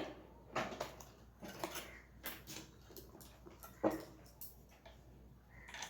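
Scattered light metallic clicks and knocks from a sewing machine's parts being handled, with the machine not running.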